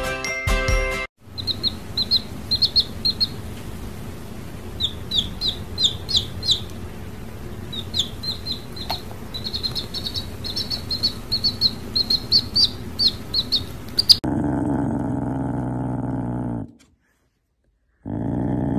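A baby chick peeping over and over, short high falling cheeps in quick runs. About fourteen seconds in the peeping gives way to a lower, steadier sound.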